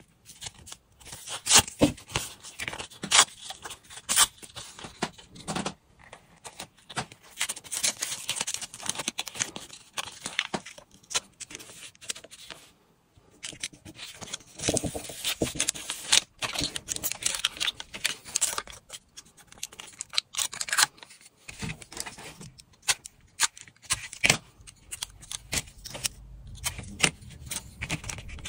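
Hands working lure-making materials and small tools: irregular sharp clicks and short scrapes, with a brief pause a little before halfway.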